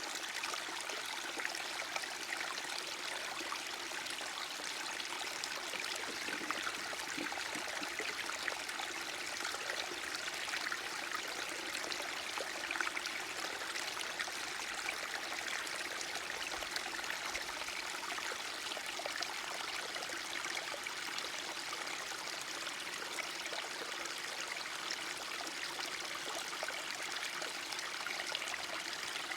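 Small stream of water running and trickling steadily, a continuous babbling splash.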